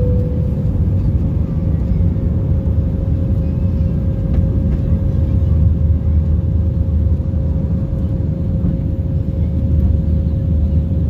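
Jet airliner cabin noise during the climb after takeoff: a steady, loud low roar of engines and airflow with a constant hum running through it.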